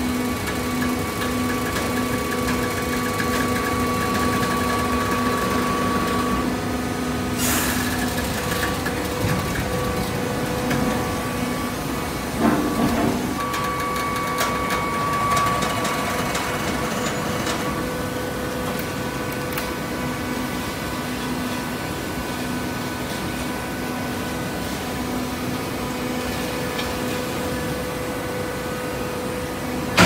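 Horizontal automatic hydraulic baler running: a steady machine hum with several held tones. A sharp click comes about seven seconds in, and a brief louder noise around twelve to thirteen seconds.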